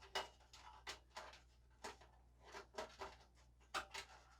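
Faint scrapes and light knocks, scattered and irregular, of a power-supply cable and its plastic connector being pulled through a PC case's cable cutout.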